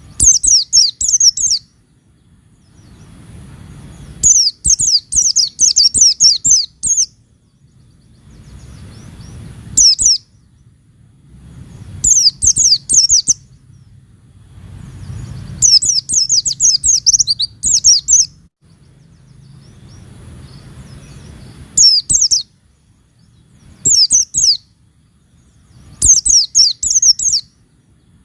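White-eye (pleci) singing in quick bouts of rapid, very high chirping notes, about eight bouts separated by short pauses. A faint low rumble fills the gaps.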